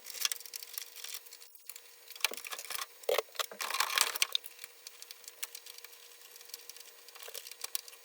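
Handling noise from swapping a DEC H7874 power supply module in a VAX BA440 enclosure: a string of metal clicks, knocks and scraping, busiest in the middle, then scattered light ticks.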